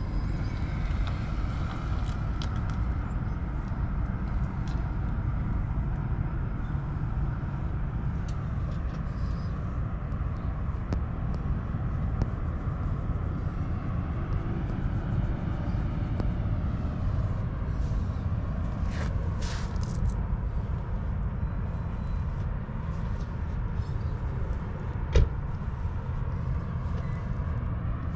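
Steady low outdoor rumble with no speech, with a brief hiss about nineteen seconds in and a single sharp click about twenty-five seconds in.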